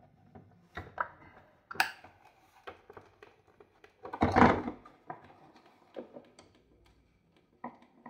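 Small clicks and knocks of wires and alligator-clip jumper leads being handled against a washing machine's plastic top, with a louder thump about four seconds in.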